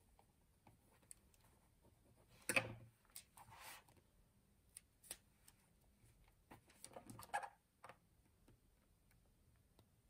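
Faint handling sounds of a paper sticker and planner pages: scattered light taps and short paper rustles, with the sharpest tap about two and a half seconds in and a small cluster of rustles and taps around seven seconds.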